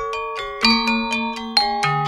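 Balinese gamelan caruk music: mallet-struck saron and gambang keys, a few strokes a second, each note ringing on, with a deeper note coming in near the end.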